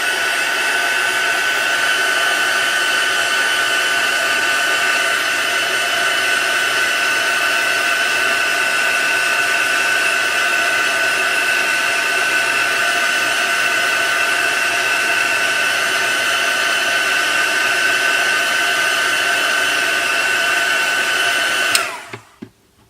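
Heat gun blowing steadily with a high fan whine, heating the adhesive tape over the display cable to loosen it. It cuts off sharply with a click about a second before the end.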